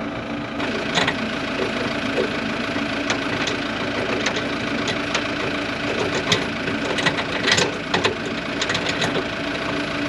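A farm diesel engine idling steadily, with scattered sharp metallic clinks and knocks from hand work on a corn head's chain and parts.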